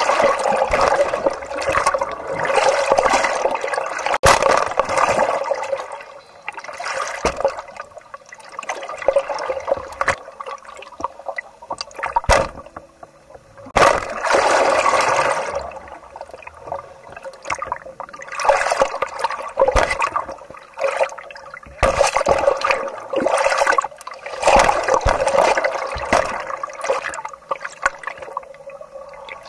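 Water sloshing and gurgling right at the microphone, swelling and falling away in surges every few seconds, with a few sharp knocks in between.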